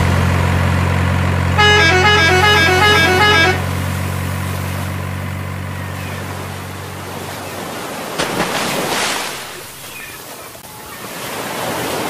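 A truck engine drones steadily, and from about 1.6 to 3.5 s a multi-note musical truck horn plays a short tune over it. The engine fades out around 7 to 8 s. A brief burst of noise follows, then the sound of moving water rises near the end.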